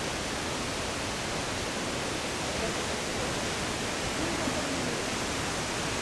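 Steady rush of fast-flowing river water.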